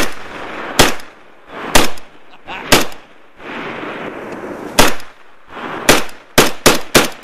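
Semi-automatic shots from an AK-pattern rifle, about nine in all, each followed by a short echo. The first four come roughly a second apart; after a pause of about two seconds comes a quicker string of five near the end.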